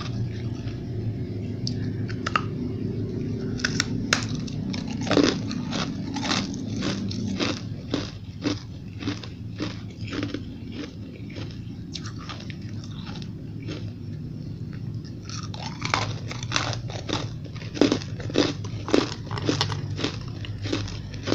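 Close-up crunching of frosty refrozen ice chunks being bitten and chewed: many sharp, crisp crunches in two dense runs, one starting about four seconds in and another in the last third. A steady low hum runs underneath.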